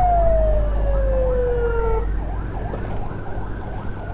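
Electronic emergency siren yelping fast, several sweeps a second, over a steady low rumble of motorcycle riding noise. In the first half a second siren tone slides slowly down in pitch for about two seconds and cuts off.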